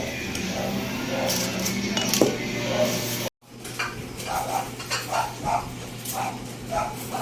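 Kitchen utensils and cookware clinking and knocking, with a brief dropout to silence about three seconds in, then more short repeated knocks and clinks.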